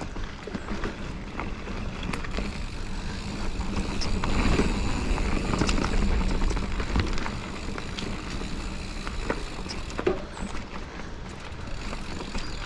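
Giant Fathom mountain bike riding a dirt singletrack: tyre noise on the ground, frequent clicks and rattles from the bike, and wind rumble on the microphone, loudest about midway through.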